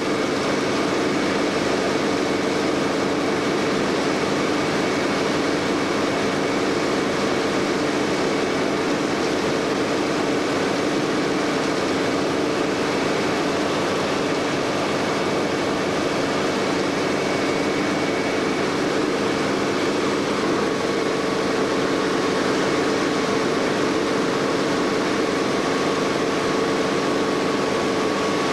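Helicopter engine and rotor noise heard from inside the cabin in flight: a steady, loud drone with a constant whine held over it.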